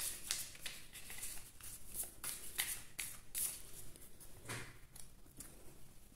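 A deck of gold-edged oracle cards being shuffled by hand: quick, irregular clicks and slaps of card against card, sparser near the end.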